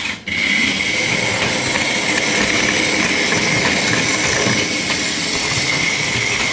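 Train running: a steady rattle and rumble of wheels on track with a high, steady whine, starting abruptly.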